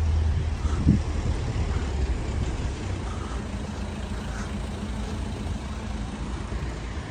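Low engine hum of a motor vehicle on the street, fading away after two or three seconds, followed by a fainter steady hum.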